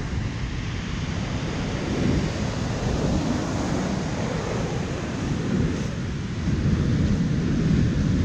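Ocean surf washing on the shore, with wind buffeting the microphone in a low rumble.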